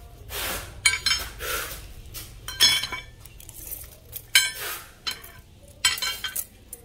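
Solid steel shafts clinking and knocking against one another as they are handled on a pile of steel parts: a series of sharp metallic clinks, some ringing briefly, mixed with the handling of a steel tape measure being drawn out.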